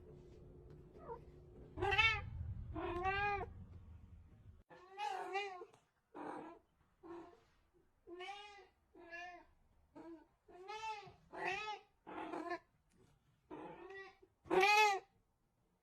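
A domestic cat meowing again and again, about a dozen meows roughly a second apart, each rising then falling in pitch; the loudest comes near the end. A low background rumble underlies the first few seconds, then stops.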